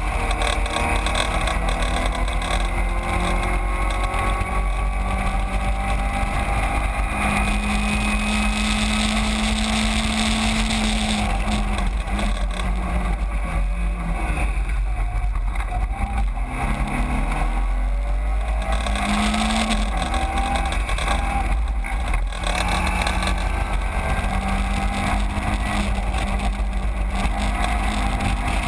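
Caterham 7 race car's engine heard from onboard at racing speed, its note climbing through the gears, dropping and picking back up around the middle as it slows for a corner, then climbing again.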